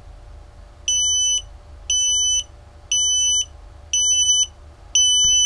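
Electronic buzzer on an FPV racing quad beeping five times, about once a second, each a steady high half-second tone, as the receiver's signal drops out while its loose connector is wiggled.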